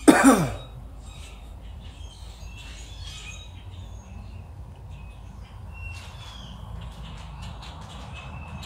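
A man coughs once, hard, at the very start while smoking a thin cigar, the cough dropping in pitch as it dies away. Small birds chirp faintly through the rest.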